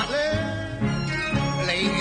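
Instrumental music from a Cantonese opera song: a melody with sliding notes over a regular, repeating bass pattern.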